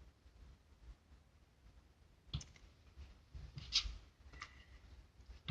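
Quiet room with a few faint, short clicks and taps of small handling noise, starting a little over two seconds in.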